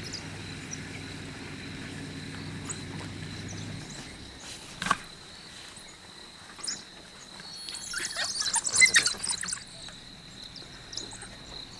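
African wild dogs twittering and squealing at a fresh kill, with a burst of high-pitched chirps about eight seconds in. Under them is a steady high insect tone and a low hum that stops about four seconds in.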